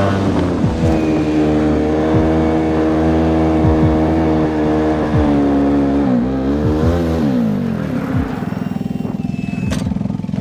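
Polaris Sportsman 570 ATV's single-cylinder engine running under steady throttle while plowing. About six seconds in its pitch drops and rises again, and near the end it settles to a lower, steady idle.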